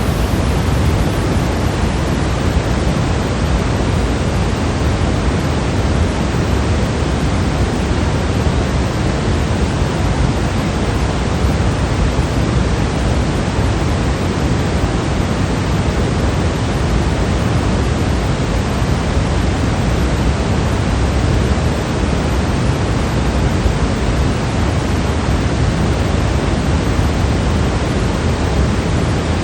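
Steady white noise: a continuous, unchanging hiss with more weight in the low end.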